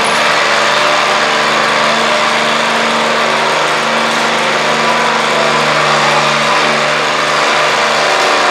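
Stock garden tractor's engine running hard at steady high revs under the load of a pull, a loud, even drone through its open upright exhaust stack.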